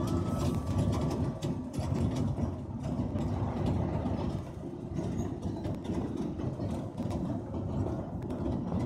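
Steady low vehicle rumble with scattered sharp clicks and rattles.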